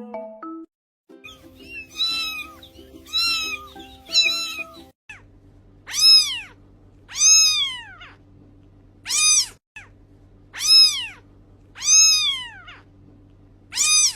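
A cat meowing over and over: four shorter meows, then six longer, high meows that each rise and fall, spaced a second or two apart, over a steady low music bed.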